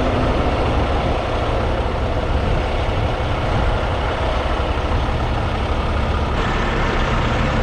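Semi truck's diesel engine running steadily, a continuous low hum with no change in speed.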